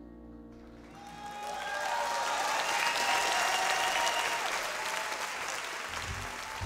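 Audience applauding, swelling about a second in, with a voice cheering over it. Near the end a band's bass and drums start the next number.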